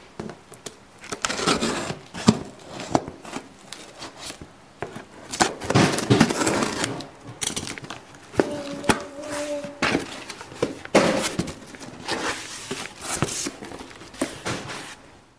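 Scissors cutting and packing tape being ripped off a cardboard box, with irregular scrapes and taps on the cardboard, then the flaps pulled open and tissue paper inside crinkling. A brief steady squeal about halfway through.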